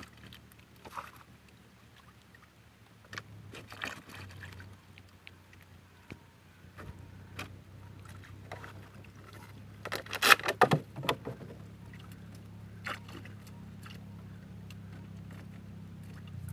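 Wire-mesh fish traps being handled and shaken out over a bucket of water: scattered clattering knocks and scrapes, with the loudest cluster of knocks about ten seconds in. A steady low hum sets in after a few seconds and carries on underneath.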